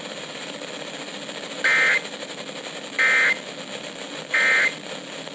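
Three short bursts of EAS end-of-message data over NOAA Weather Radio: SAME digital 'NNNN' warbles, evenly spaced about 1.3 s apart, signalling the end of the warning broadcast. Steady radio static hiss underneath.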